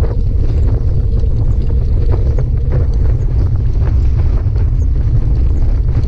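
Loud wind buffeting the microphone of a camera on a moving bicycle, a steady low roar, with scattered light knocks and rattles from the ride.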